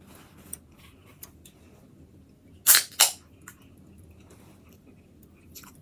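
A person chewing a cheeseburger with closed mouth, with small scattered mouth clicks. About two and a half seconds in come two sharp, loud snaps about a third of a second apart, the loudest sounds here.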